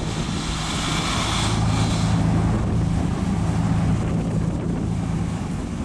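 Engine of a canal barge (péniche) running steadily at low speed as the boat moves slowly into a lock. It makes a low, even hum that drops away near the end.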